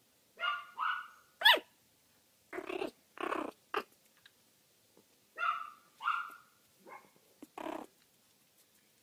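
Schnauzer puppy giving short, high-pitched yips and whines, the sharpest about a second and a half in, with rougher, noisier growly sounds in between.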